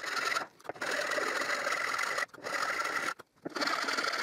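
Flat metal file rasping on wood, flattening the bottom of a hinge mortise cut into a wooden box. Steady scraping strokes, broken by three short pauses: about half a second in, past two seconds, and past three seconds.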